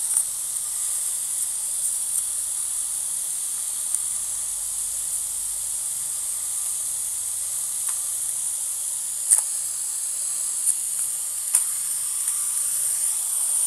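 Steady high-pitched hiss, with a few faint clicks about nine to twelve seconds in.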